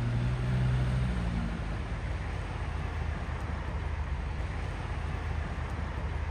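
A vehicle engine running steadily at idle. A low hum drops away about a second and a half in, leaving a steady low rumble.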